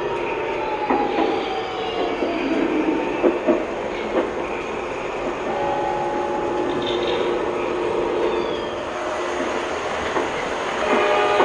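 Lionel O-gauge Acela model train running on the layout's track, with a steady rolling rumble and wheels clacking over the rail joints. A horn-like tone sounds near the end.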